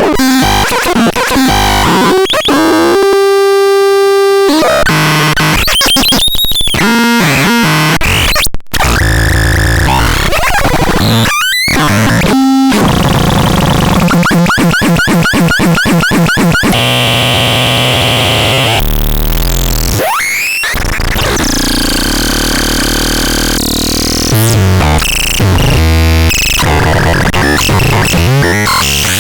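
Harsh, chaotic electronic noise from the CBX 6013E: held tones and buzzy chords, fast up-and-down pitch sweeps, stuttering glitch patterns and bursts of hiss, changing every second or two. It cuts out for an instant about eight seconds in.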